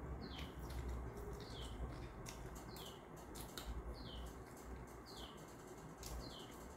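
A bird giving the same short falling chirp over and over, about once a second, with scattered crisp crunching clicks from chewing papad.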